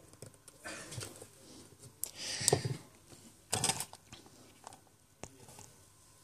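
Hands handling an opened iPhone 4S and small repair parts on a rubber work mat: three short bouts of soft clicks and rustles, the loudest about two and a half seconds in.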